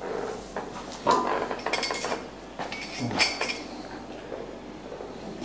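Metal clinks and knocks from a gym weight machine being set up and mounted: a few sharp clanks about a second in, a cluster around two seconds and another around three seconds.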